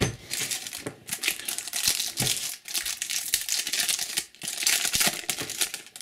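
Foil wrapper of a Panini Adrenalyn XL trading card booster pack crinkling and tearing as it is handled and ripped open: a dense run of crackling with two brief pauses.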